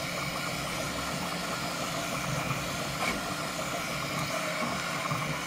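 Bambu Lab P1S 3D printer printing at standard (fast) speed: a steady mechanical whir of its motors and fans as the toolhead moves quickly back and forth, the machine shaking a ton.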